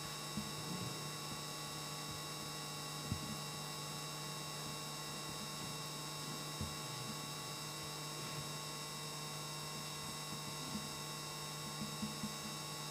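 Steady electrical mains hum from the sound system, with a few faint, soft knocks.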